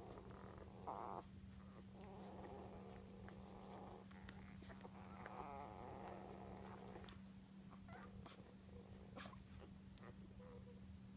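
One-week-old English setter puppies making faint grunting sounds in spells of a second or two, with a few soft clicks.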